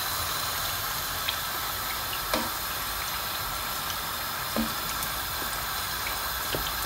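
Samosas deep-frying in hot oil in a wok: a steady sizzling hiss, with a few light taps of a metal slotted spoon as they are turned.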